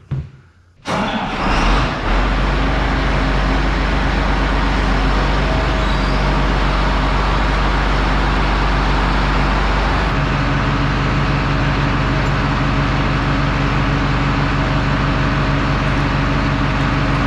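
Large John Deere tractor's diesel engine starting up about a second in, then running steadily; its low note changes about ten seconds in.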